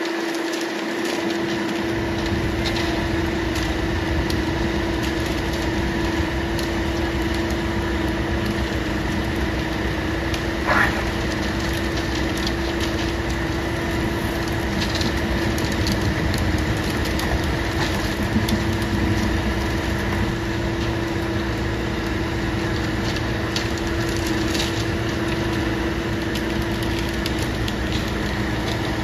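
Concrete mixer truck's diesel engine running steadily, with a constant low hum. A short squeal sounds about ten seconds in.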